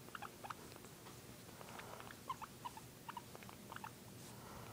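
Guinea pig making many short, soft squeaks, scattered irregularly.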